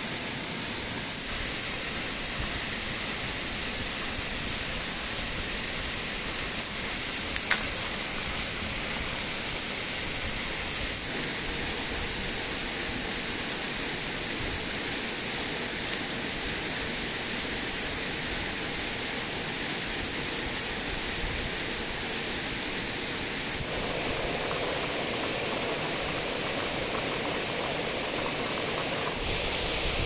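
Steady rush of a tropical forest waterfall and stream, with a brief knock about seven seconds in.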